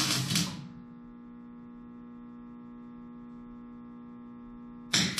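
MIG welding arc from an ESAB 251 MIG welder crackling and sizzling as it runs a bead on steel exhaust pipe. The arc stops about half a second in, leaving a steady hum, and starts crackling again near the end.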